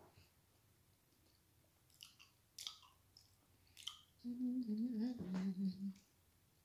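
Person chewing chocolate, a few short wet mouth clicks, then a closed-mouth 'mmm' hum that wavers in pitch for about a second and a half near the end.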